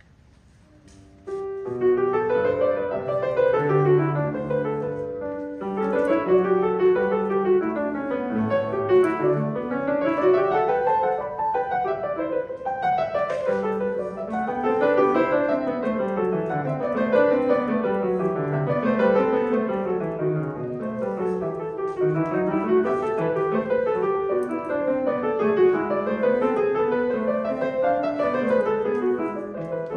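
Grand piano played solo, beginning about a second and a half in and then running on in quick runs of notes that climb and fall again and again.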